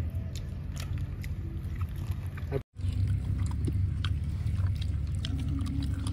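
People chewing and biting into cooked fish, with scattered small crunches and clicks, over a steady low rumble. The sound drops out for an instant about two and a half seconds in.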